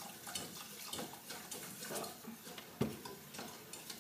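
A utensil stirring béchamel in a metal saucepan: small irregular taps and scrapes against the pan, with one sharper knock near the end.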